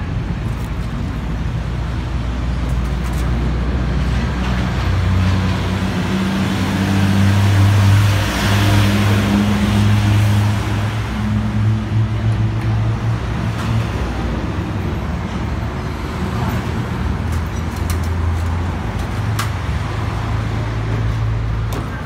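Road traffic noise with a vehicle engine droning low and steady, swelling louder around eight to ten seconds in as it passes. A few light clicks near the end.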